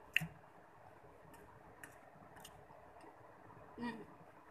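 Faint clicks: one sharp click just after the start and a few soft ones after it, with a short hummed voice sound near the end.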